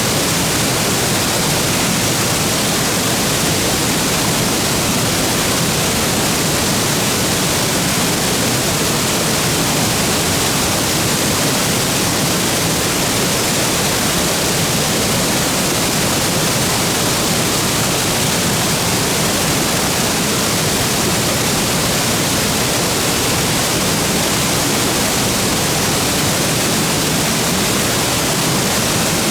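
Waterfall plunging into its pool: a steady, loud, even rush of falling water with no change.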